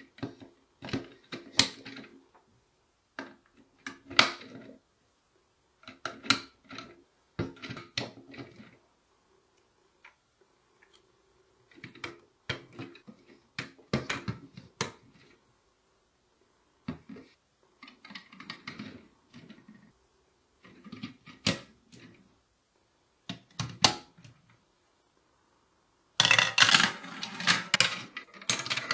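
Plastic toy pieces clicking and clattering in short bursts with pauses between, ending in a dense rattle for the last few seconds.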